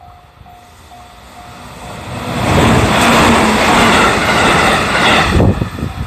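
Japanese level-crossing warning bell dinging about twice a second, drowned out from about two seconds in as a JR Central electric commuter train passes close by, its wheels on the rails loud until the noise drops sharply about five and a half seconds in.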